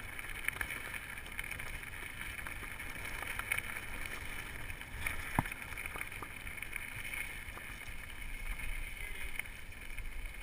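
Wind on a chest-mounted camera's microphone and the steady rumble and rattle of a downhill mountain bike running over a rough trail, with a few sharp knocks, the loudest about five seconds in.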